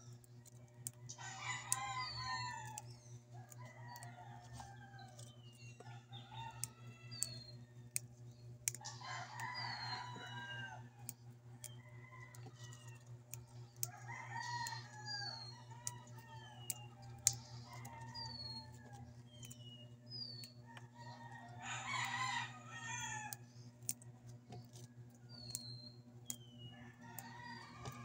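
A rooster crowing five times, each crow lasting about a second and a half, with short high chirps in between over a steady low hum.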